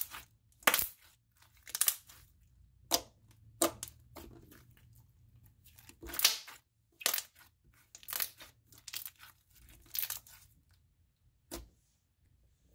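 Purple crunchy slime with foam beads and slushy beads being squeezed and pressed by hand, giving short sharp crackles and pops at uneven intervals, roughly one a second.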